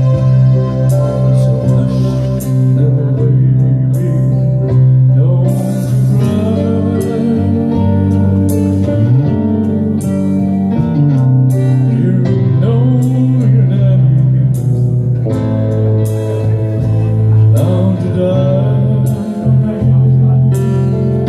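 A male singer performing live into a microphone over loud amplified backing music with a steady, shifting bass line.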